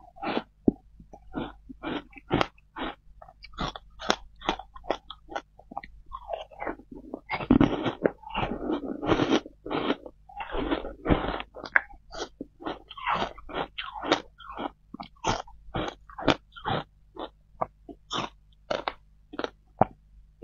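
Close-miked crunching and chewing of packed shaved ice topped with passion fruit: a fast, irregular run of sharp crunches, with longer, louder chewing bouts about halfway through.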